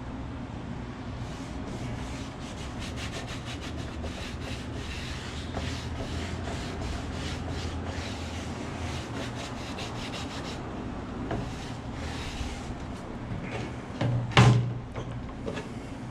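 Quick, repeated rubbing strokes by hand over a wooden transom board, with a steady low hum underneath. A single knock comes near the end.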